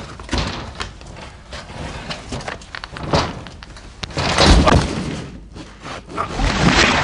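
Irregular knocks, thuds and rustling as clutter is bumped and the handheld camera is jostled, with a louder scuffle about four to five seconds in and another near the end.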